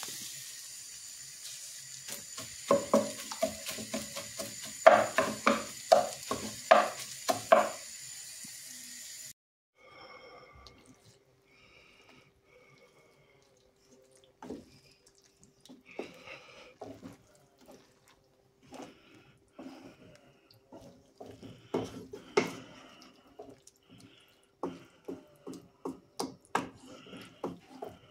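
Wooden spatula knocking and scraping against a non-stick frying pan while stirring a thick tomato-and-meat macaroni sauce. It starts with a run of loud knocks over a steady hiss, then changes abruptly to quieter scrapes and taps over a faint steady hum, which grow busier again near the end.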